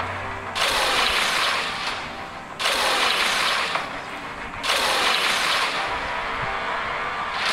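The Snapchat Venom filter's sound effect: three sudden bursts of harsh, hissing noise about two seconds apart, each fading away.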